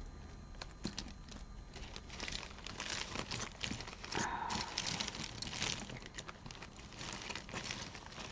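Tangled costume jewelry being worked apart by hand: a stream of small irregular clicks and rustles from chains and beads, a little louder in the middle.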